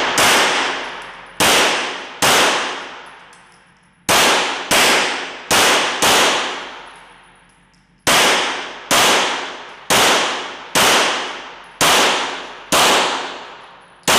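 Steyr L9 A2-MF 9 mm Luger pistol firing about fifteen shots, spaced a little under a second apart, with two short pauses. Each shot echoes and fades slowly in an indoor range.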